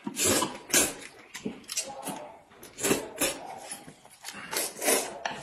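People slurping and chewing noodles eaten with chopsticks: a run of loud, irregular slurps, one every half second to a second.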